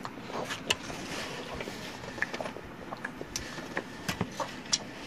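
A person eating lasagna: chewing with scattered short mouth clicks and smacks at irregular intervals.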